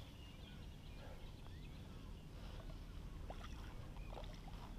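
Faint steady low rumble with a few light ticks and small splashes from a hooked brown trout thrashing at the surface close to the bank.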